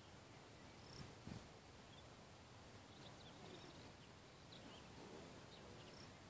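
Near silence: faint outdoor ambience with scattered short, high chirps and a soft thump about a second in.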